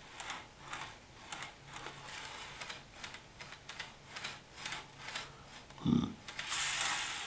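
N-scale model coach pushed by hand along the track, its wheels making a light, irregular clacking of about three clicks a second. The clacking comes from a bogie crossing a rail joint where the feeder wires were soldered on awkwardly. Near the end there is a low thump and a brief rushing noise.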